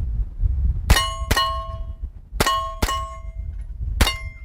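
Double-taps from a 9mm pistol-caliber carbine on steel targets, each hit ringing the steel with a short metallic clang. Two pairs of shots about 0.4 s apart, then a fifth shot near the end.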